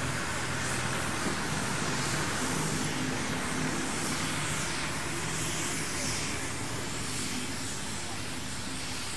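A vehicle engine running steadily, a low hum over an even outdoor noise.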